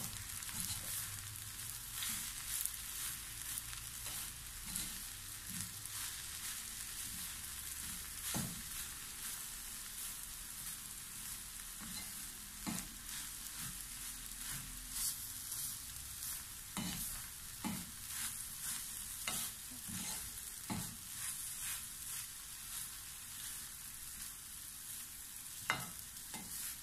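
Wooden spatula stirring ash plantain and grated coconut mallum in a nonstick wok, over a soft steady sizzle, with irregular scrapes and taps against the pan. This is the final mixing once the coconut has cooked through.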